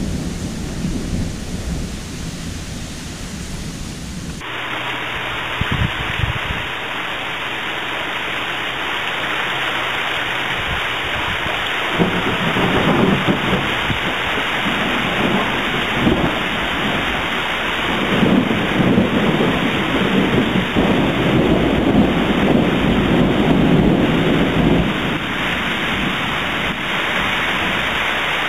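Steady rain and wind in a summer storm. About four seconds in, the recording changes to a duller, fuller rain hiss, and later low rumbles swell and fade several times.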